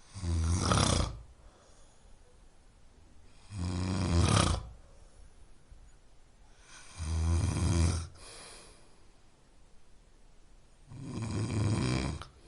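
A person snoring: four snores, each about a second long, coming about every three and a half to four seconds.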